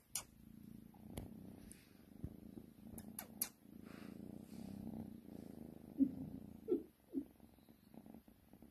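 Kitten purring in a low steady hum that swells and fades over several seconds at a time. A few short, louder sounds stand out about six to seven seconds in, with faint clicks near the start.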